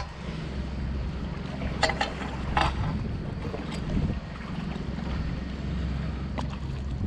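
Wind buffeting the microphone, a steady low rumble, with a few short sharp noises about two seconds in and again near the end.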